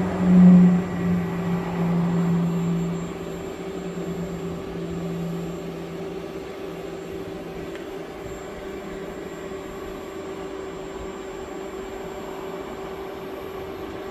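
Refrigerant recovery machine running on a bus A/C system, a steady mechanical hum. Its deeper hum is strong at first, then fades about three seconds in, and the machine runs on more quietly.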